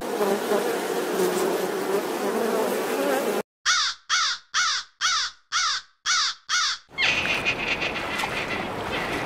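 Bees buzzing steadily. Then a crow caws seven times in an even series, about two caws a second, followed by a different noisy animal sound near the end.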